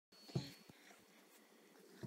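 A single short cough, followed by two much fainter brief sounds.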